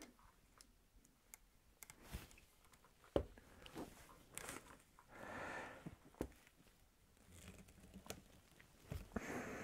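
Small bolt cutters and a stainless steel screw being handled and lined up in the jaws: faint rustling and a few sharp metal clicks, the loudest about three seconds in.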